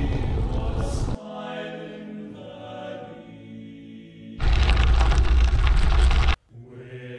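Loud wind buffeting the microphone of a moving bike camera, cut off abruptly about a second in by music with chanting voices. The wind rumble cuts back in loudly for about two seconds, then stops dead and the music returns near the end.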